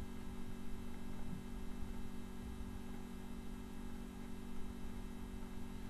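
Steady low electrical hum with faint background hiss; no distinct tool sounds stand out.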